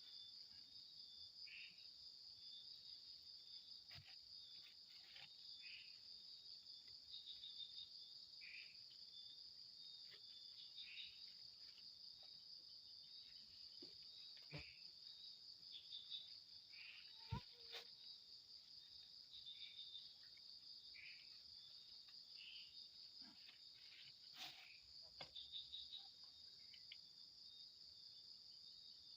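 Night insects, crickets among them, chirring in a continuous, finely pulsing high trill, with a second, broken trill just below it and short scattered calls lower down. A few faint sharp clicks, the loudest about two-thirds of the way in.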